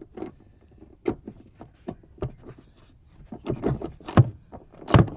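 Socket wrench with an extension working a recessed 16 mm seatbelt anchor bolt loose: a series of irregular sharp metallic clicks and knocks, coming faster and louder in the second half.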